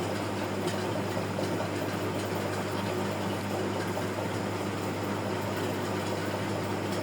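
Steady low hum with an even hiss beneath it: background room noise.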